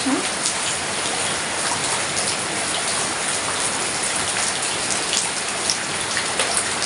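Heavy rain falling steadily, with many close drops striking.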